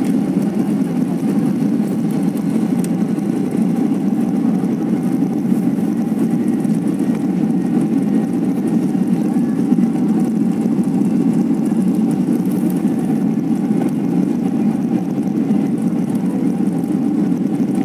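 Airliner's jet engines at takeoff thrust, heard from inside the passenger cabin as a loud, steady drone with a faint steady whine above it, during the climb just after liftoff.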